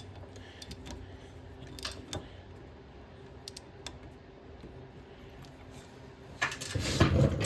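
Light metallic clicks from a wrench working around the nuts of a tractor's taper rear hub, with a louder spell of clicking and clanking near the end.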